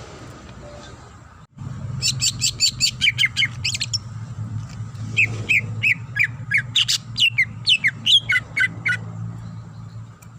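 Greater green leafbird (cucak ijo) singing a fast run of sharp, downward-sliding whistled notes, about four to five a second, that starts about two seconds in and stops near the end.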